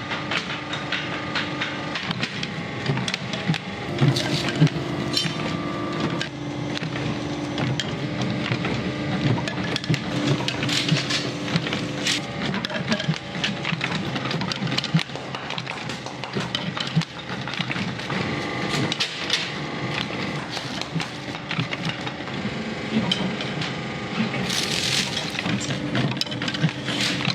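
Pencil-making machinery running: a steady machine hum under a dense, continuous clatter of wooden pieces clicking and knocking.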